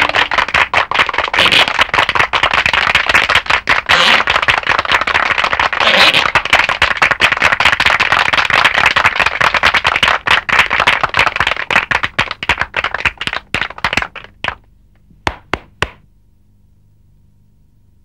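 Rapid, dense clattering of cartoon sound effects, a fast run of sharp clicks and knocks. It thins to a few separate clicks near the end and stops, leaving a faint low hum.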